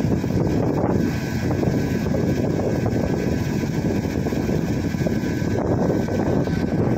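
Truck engine running steadily to power a truck-mounted crane, mixed with wind buffeting the microphone.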